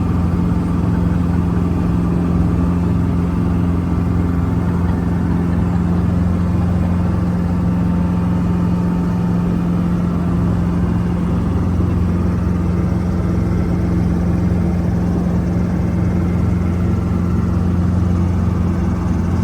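Helicopter running close by: a loud, steady drone with a low hum that holds one pitch throughout.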